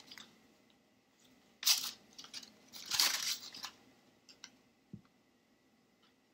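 Paper rustling and crinkling as a paper craft is handled, in two short bursts about one and a half and three seconds in, followed by a few small clicks and a soft knock about five seconds in.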